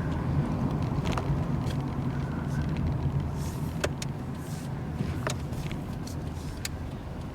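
Car running with a steady low drone of engine and road noise, with four sharp clicks at uneven intervals.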